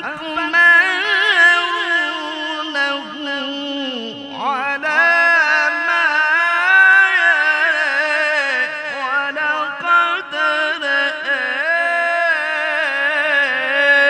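A man reciting the Quran in the melodic tilawah style, his voice drawing out long ornamented phrases on sustained breaths. There is a short break about four seconds in before a new phrase rises in pitch.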